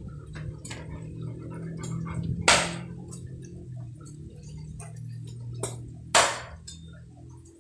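Cleaver chopping thin dry sticks against a round wooden chopping block: two sharp, loud chops about three and a half seconds apart, with a few lighter knocks between. A steady low hum runs underneath.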